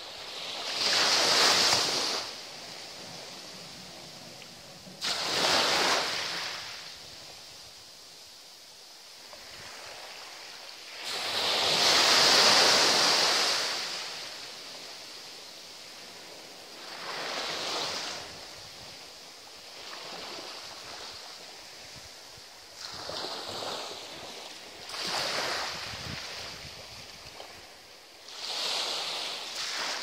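Small waves breaking and washing up a sandy beach: a rush of surf every few seconds, fading between breaks, the biggest about twelve seconds in.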